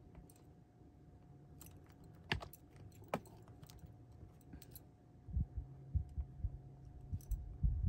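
Tabletop paper-crafting handling: a couple of sharp clicks a little over two and three seconds in as a glue bottle is set down, then a run of soft low thumps and taps in the second half as glued paper pieces are brushed and pressed down on the desk. A faint steady hum sits underneath.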